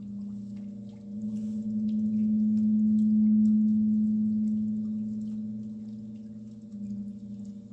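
Sustained low droning tone with a few faint higher tones held above it, swelling to its loudest a few seconds in and then slowly fading, with faint scattered clicks.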